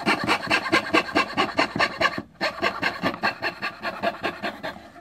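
Hand fretsaw sawing through wood in quick, even strokes, about six a second. It pauses briefly about two seconds in, then resumes and stops near the end.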